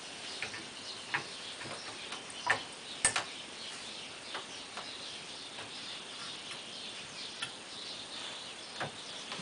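Light wooden clicks and knocks as the flyer and bobbin are fitted into the uprights of a beech spinning wheel, scattered and irregular, with the sharpest knocks about two and a half and three seconds in.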